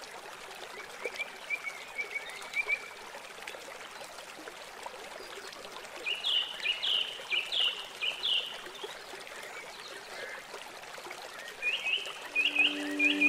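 Nature ambience: a steady rushing like flowing water, with birds chirping in quick runs of short high notes, faint at first and louder midway and near the end.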